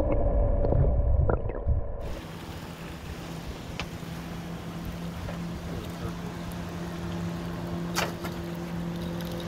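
Rumbling wind and water noise on a small fishing boat, then, after a cut about two seconds in, a boat motor running with a steady low hum and a few faint clicks.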